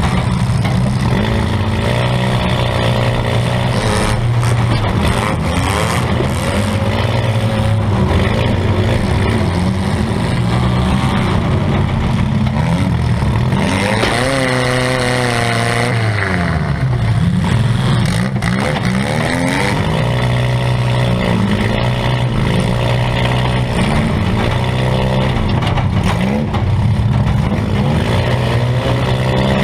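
Compact demolition derby car's engine revving up and falling back again and again as it is driven hard, heard from inside the cab, with a few sharp knocks.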